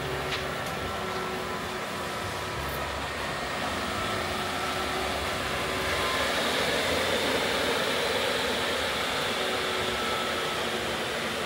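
Steady rushing hum of a Swegon GOLD heat-recovery ventilator running with its access doors open, its fans moving air, with faint steady tones over the noise. It gets a little louder about six seconds in.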